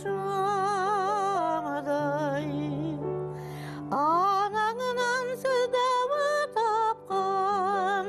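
Music: a woman singing long held notes with wide vibrato over a steady sustained accompaniment, sliding up into a new phrase about halfway through.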